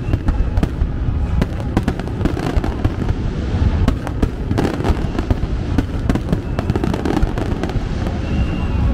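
Fireworks display: a dense, unbroken run of bangs and crackles over a continuous low rumble.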